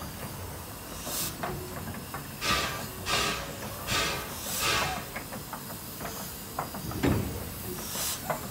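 Steam locomotive starting off slowly, its exhaust chuffing roughly once a second over a steady hiss of steam venting from the cylinders. A few metallic clanks and a heavy thump come a little after halfway.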